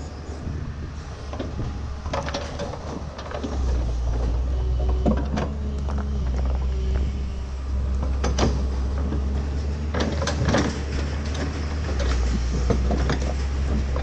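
Excavator's diesel engine working under load, its low hum growing heavier a few seconds in, with irregular knocks and cracks as the hydraulic hammer pushes and pries at a tree stump.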